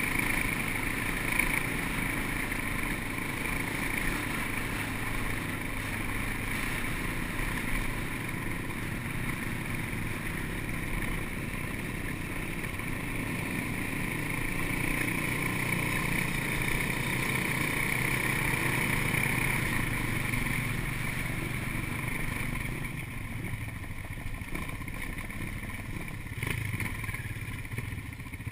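Off-road motorcycle engine running steadily while riding over a rough, stony dirt road, heard from the bike itself; it eases off a little near the end as the bike slows.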